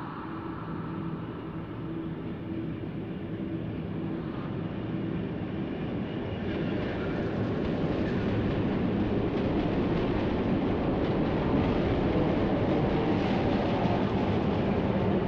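A low, steady rumble with a few held low tones, slowly swelling in loudness, train-like in character.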